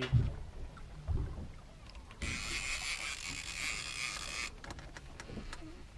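A fishing reel buzzing for about two seconds in the middle, sharp-edged at start and stop, while a hooked fish is fought on a boat rod. A couple of dull thumps come in the first second or so.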